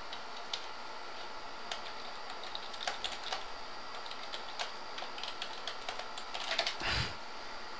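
Scattered light clicks and taps, like keys or small objects being handled, over a steady hiss. A quicker run of clicks and a soft thump come about seven seconds in.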